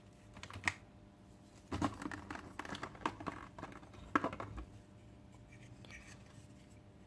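Small plastic robot-kit parts handled by hand: a few light clicks and rustles scattered through a quiet stretch, the clearest about two seconds and four seconds in.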